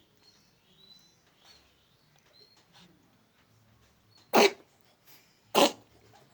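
A pet giving two short, sharp sneezes or coughs about a second apart, the second near the end.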